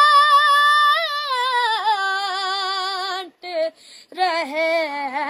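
A boy's high voice singing an unaccompanied Urdu noha, a lament for Imam Husain. He holds a long note with vibrato, runs down an ornamented falling line, breaks off for a breath a little past halfway, then carries on with the melody.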